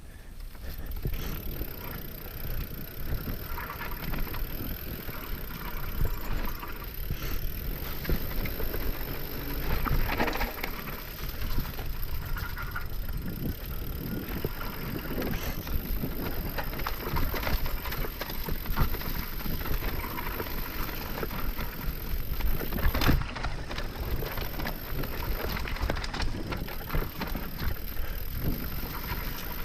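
Mountain bike riding down a dirt trail on WTB Vigilante front and Trail Boss rear tyres: a steady rushing noise of tyres and air, with frequent short knocks and rattles from the bike over rough ground.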